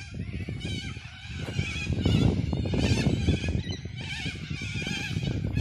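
Birds calling over and over in wavering high screeches, over a strong, uneven low rumble of wind on the microphone.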